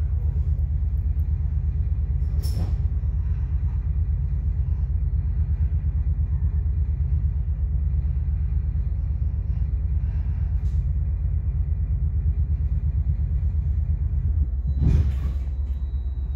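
Steady low rumble heard inside a Metra commuter train coach as the train slows to a near stop. A single sharp click comes about two and a half seconds in, and a short knock near the end.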